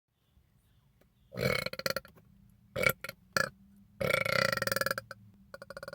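A man burping several times, the soda burps of a burp compilation: a first burp about a second and a half in, two short ones, then a longer burp lasting about a second, which he calls kind of long, trailing into quick faint creaky pulses near the end.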